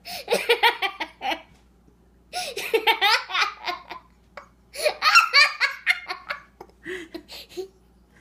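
A teenage girl laughing hard, in three bursts of pulsing laughter with short pauses between them, the last burst the longest.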